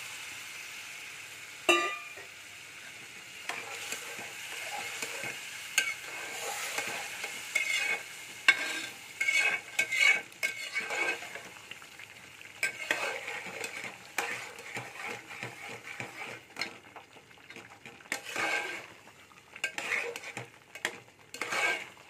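Steel spatula stirring and scraping semolina halwa around a metal pot in irregular strokes, while the semolina, just mixed with hot sugar syrup, sizzles in the ghee. The sizzle fades over the first few seconds. There is one sharp clink of metal on the pot a little under two seconds in.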